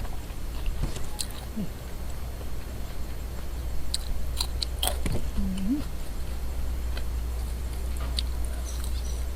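A person chewing and biting food close to the microphone, with scattered short wet mouth clicks over a low steady hum.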